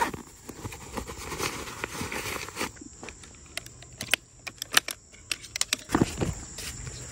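A run of handling sounds: a knock, then rustling, then a quick series of sharp clicks and dull knocks, over a faint steady high-pitched tone.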